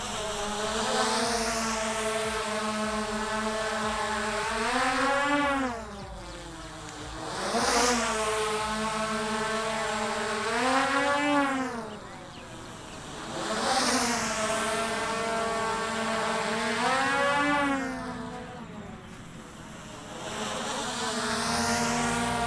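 DJI Mavic Air 2 quadcopter's motors and propellers whining in flight. Three times the whine climbs in pitch, then drops away and briefly eases off, during rapid ascents and descents.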